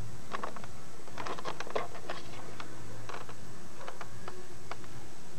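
Irregular clicks and taps of hands handling a camcorder, coming in short clusters over a steady low hum.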